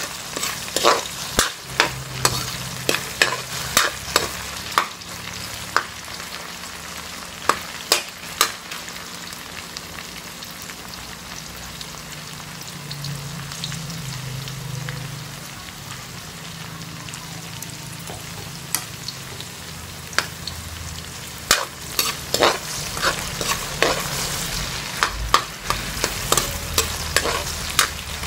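Sliced okra frying in oil in an aluminium wok, a steady sizzle throughout. A metal spatula scrapes and clacks against the wok in stirring at the start and again in the last several seconds, with a stretch of plain sizzling in the middle.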